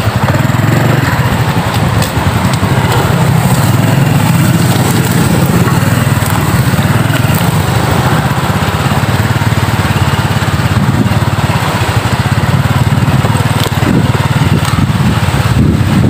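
Strong gusty wind buffeting the microphone: a loud, steady rumble with a rushing hiss over it.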